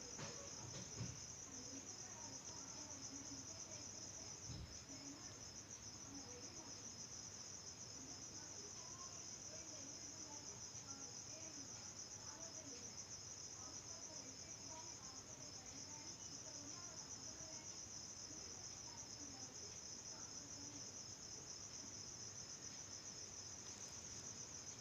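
A cricket trilling steadily, a fast, high, continuous pulsing, faint, with a couple of soft thumps in the first few seconds.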